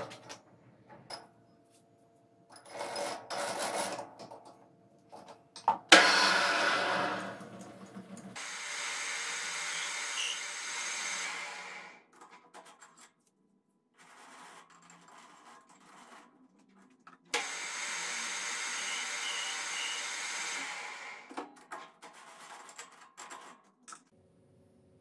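Work at a metal lathe: clinks and knocks of the chuck key and metal parts, a loud clank about six seconds in, and twice a few seconds of the lathe running steadily, the second run starting suddenly and stopping after about four seconds.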